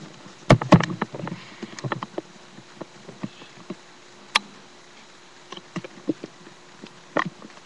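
Handling noise from a webcam being moved and turned: two sharp knocks about half a second in, then scattered lighter clicks and taps, with single sharper clicks near the middle and near the end.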